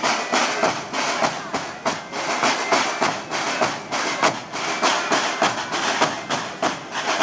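A Portuguese bombos band (Zés Pereiras) playing large rope-tensioned bass drums and smaller snare drums together with sticks, in a steady, fast, driving beat.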